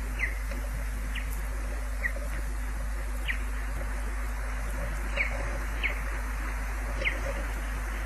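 Ospreys at the nest giving seven short, high, downward-slurred whistled calls at uneven intervals of about a second, over a steady hiss.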